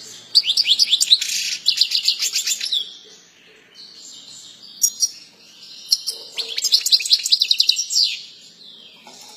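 European goldfinch singing: two long phrases of rapid, repeated trilled notes, one starting about half a second in and another about six seconds in, with quieter chattering between them.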